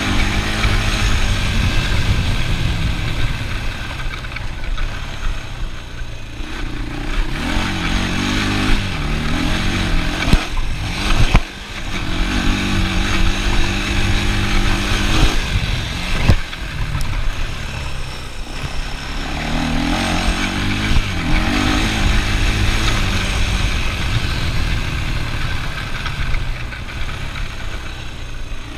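ATV engine running under way, its pitch rising and falling again and again as the throttle opens and closes, with wind rumbling on the chest-worn microphone. A few sharp knocks come midway.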